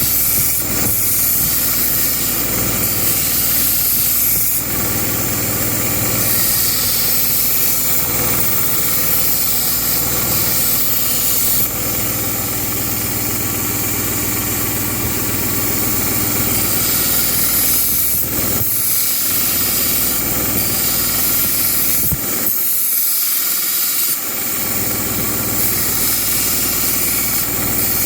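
Belt grinder running with a knife blade held to the abrasive belt over a soft platen: a steady loud hiss of the grinding over the motor's low hum, with two short lulls in the hum about two-thirds of the way through.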